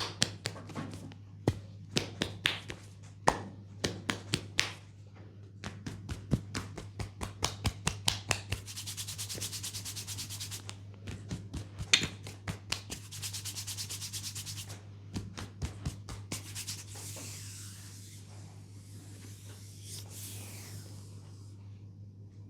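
Hands massaging a knee: a run of sharp taps and slaps on the skin, then two bursts of very rapid rubbing strokes, and softer rubbing near the end, over a steady low hum.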